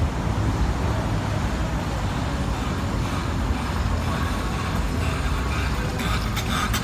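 Road traffic noise: the steady rumble and hiss of vehicles on a city street. Near the end, music starts up over it.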